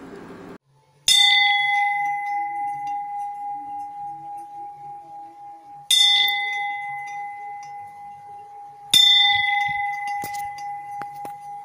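A bell struck three times, each strike ringing on in one clear tone that wavers as it slowly fades.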